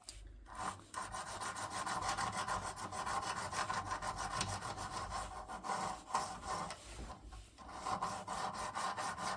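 Brass lock part being filed by hand: a steady run of rapid rasping strokes, with two brief pauses.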